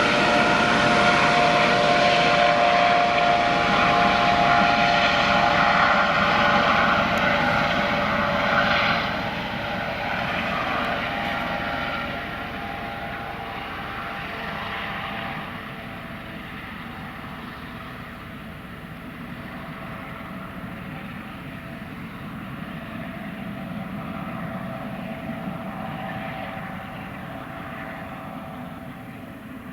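Eurocopter AS365 Dauphin twin-turbine rescue helicopter departing: a steady whine over rotor and turbine noise. It is loud at first, drops away about nine seconds in, and keeps fading as the helicopter flies off.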